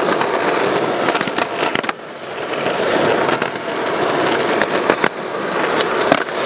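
Skateboard wheels rolling on rough concrete, a steady grinding hiss with a few knocks along the way, then a sharp clack near the end as the tail is popped for a flip trick.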